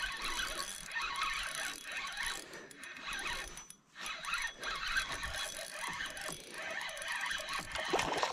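Spinning fishing reel being cranked steadily as a hooked smallmouth bass is reeled in toward the kayak, with one brief pause about four seconds in.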